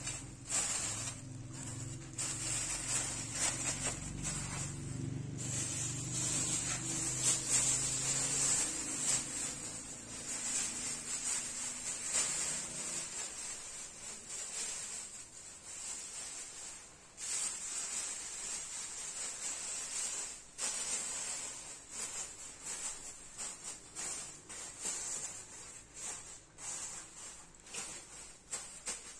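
Thin plastic sheet crinkling and rustling as it is wrapped and pressed around a basket of fresh leaves, in uneven bursts with brief pauses. A low hum runs under it for the first dozen seconds or so.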